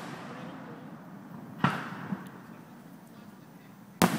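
Aerial firework shells bursting: two sharp booms, one about a second and a half in and one near the end, each followed by a fading echo.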